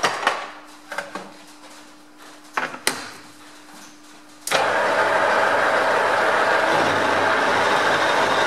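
A few sharp clicks and knocks from the lathe's quick-change tool post being set, then about halfway through the metal lathe is switched on. It starts abruptly and runs with a loud, steady noise as the three-jaw chuck spins.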